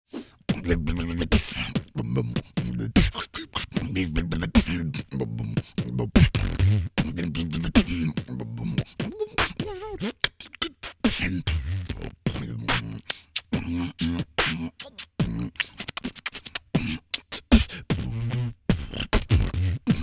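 Vocal beatboxing close on a microphone: a busy rhythmic beat of sharp clicks, snare-like hits and kicks over short hummed bass notes.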